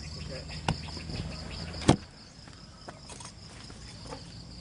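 Steady high chirring of crickets or other insects, with a few sharp knocks, the loudest about two seconds in.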